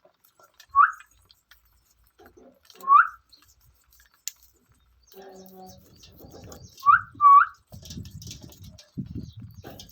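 Pet parrot giving short whistles that hook upward in pitch: one near the start, another about two seconds later, then a quick pair further on. Faint low rustling runs under the second half.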